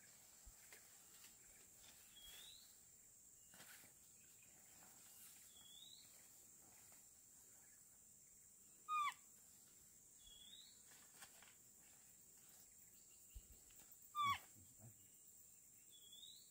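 Animal calls in near silence. A short rising chirp repeats about every three seconds over a steady high whine, and two louder, short falling calls come about 9 and 14 seconds in.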